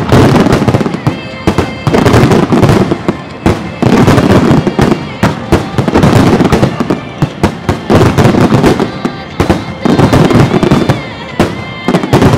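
Starmine fireworks barrage: aerial shells bursting in rapid succession, a loud, nearly continuous run of reports with fresh bangs every fraction of a second.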